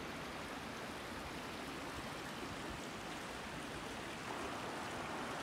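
Shallow creek water running steadily over riffles, slightly louder near the end.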